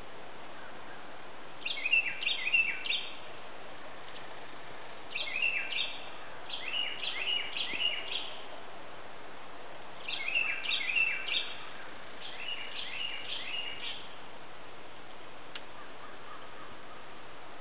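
Northern Cardinal singing: about five phrases, each a quick run of repeated down-slurred whistles lasting one to two seconds, with short pauses between them.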